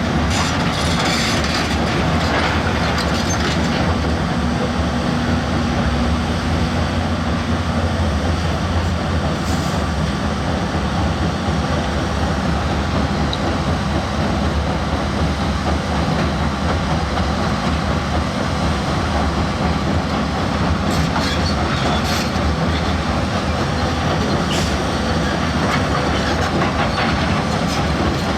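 Heavy diesel earthmoving machine running steadily under load, with a few metallic clanks.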